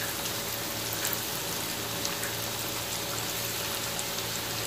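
Batter-coated chicken strips deep-frying in hot oil in a wok: a steady bubbling sizzle with scattered small crackles.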